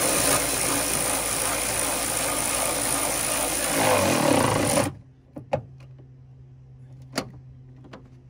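A power tool runs loudly and steadily for about five seconds, changing in tone just before it cuts off suddenly, as it drives down a 13 mm bolt; a few light clicks follow.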